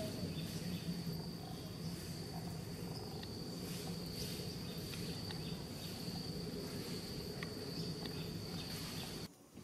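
Steady high-pitched insect drone, a cricket or cicada-type trill, over a low hum, with a few faint ticks; the sound cuts out briefly near the end.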